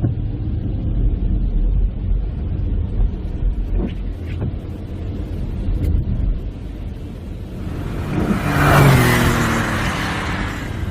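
Steady low road rumble inside a moving car on wet roads in the rain, with a few faint ticks. About eight seconds in, a loud rushing hiss with engine tones swells and fades over two seconds, like another vehicle passing through spray on the wet road.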